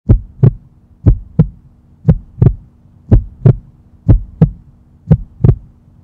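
Heartbeat-like sound effect: a double low thump about once a second, six times, over a faint steady hum.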